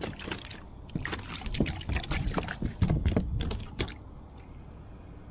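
A quick run of sharp clicks, knocks and rustles from handling a freshly caught small bream and the tackle on a plastic kayak. They stop about four seconds in, leaving a low steady wash of water and wind.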